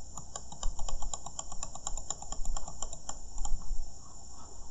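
Rapid series of computer mouse clicks, about six a second, from repeatedly clicking a zoom-out button; they stop about three and a half seconds in. A steady high-pitched hiss sits underneath.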